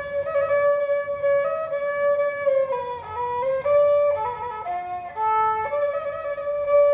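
Cambodian tro, a two-string bowed fiddle, playing a slow melody: one line of held notes joined by short slides, with a run of quicker, shorter notes in the middle.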